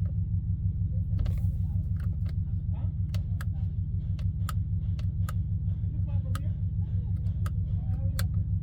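BMW X5's engine idling with a steady low, evenly pulsing hum, while a series of sharp clicks sound irregularly over it.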